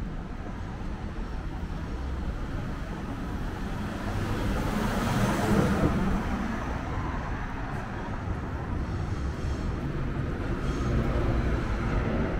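City street traffic ambience, with a vehicle passing that grows loudest about five to six seconds in.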